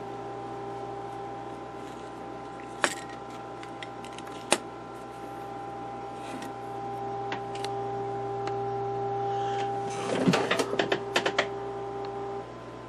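Philco 37-640 tube radio's speaker putting out a steady test tone over a low hum: the set is receiving the injected 4 MHz signal, but only weakly despite a strong input and the volume turned all the way up. There are a couple of sharp clicks and then a burst of clicks and knocks about ten seconds in, and the tone cuts off shortly before the end.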